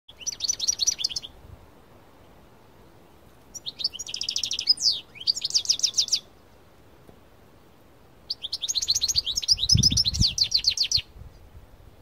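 European goldfinch of the parva race singing in three bursts of rapid, high twittering trills: a short one at the start, a longer one from about four to six seconds, and the longest from about eight and a half to eleven seconds, with pauses between.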